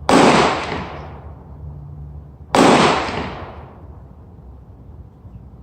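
Two rifle shots from an AR-15 chambered in 450 Bushmaster, about two and a half seconds apart, each followed by a long fading echo.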